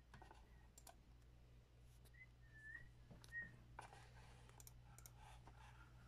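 Near silence: a faint steady low electrical hum, with a handful of faint scattered clicks.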